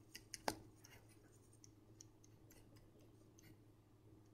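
Near silence with faint ticks and scratches of a ballpoint pen writing on paper, the sharpest few in the first second, over a faint steady hum.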